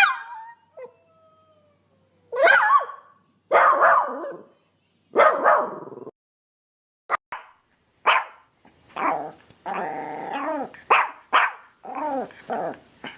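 Dog barking: a sharp yelp falling in pitch at the start, then three separate barks about a second apart. After a brief pause comes a quicker run of barks, with one longer, drawn-out bark in the middle.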